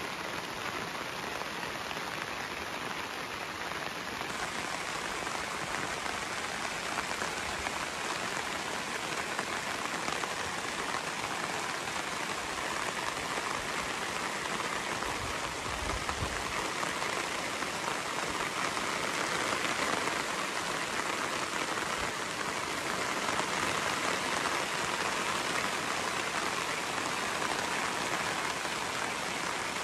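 Heavy rain falling steadily on the tarp overhead and the surrounding grass, a dense even patter that grows a little louder in the second half.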